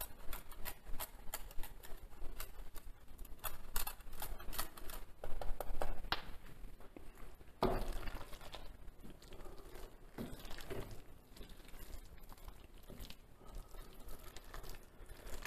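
Parmigiano Reggiano being grated on a hand grater in quick, light rasping strokes, then, about halfway through, a wooden spoon stirring thick risotto in a stainless steel pan with soft scrapes.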